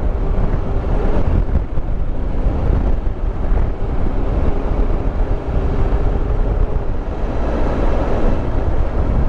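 Triumph Tiger Explorer 1200 motorcycle riding at road speed, its inline three-cylinder engine running steadily under heavy wind noise on the microphone.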